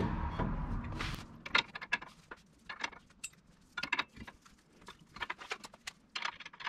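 Brake caliper bracket rubbing as it is seated over the rotor for about the first second, then a scatter of light metallic clicks and clinks as its mounting bolt is started by hand with a socket.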